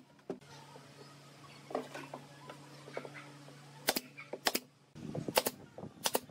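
DCA pneumatic nail gun firing nails into pine boards: four sharp shots in the second half, with lighter knocks of wood being handled before them.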